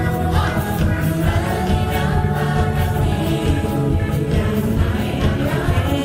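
A choir singing a song over instrumental backing music.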